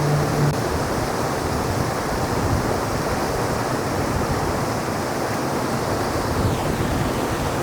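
Steady, even rush of falling water from the Ōyu-taki hot-spring waterfall.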